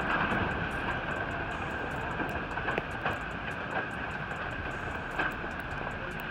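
Steady rushing roar of the flooded, glacier-fed Waiho River in spate, as heard from its bank, with a few faint clicks.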